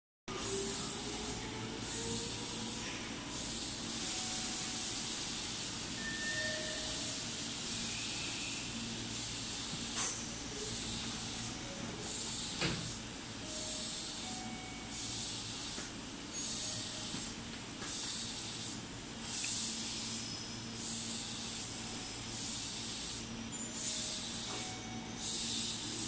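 Meitetsu 6000 series electric train standing at the platform with a steady low hum, under a rhythmic hiss that swells and fades about once a second, before it starts to move off near the end.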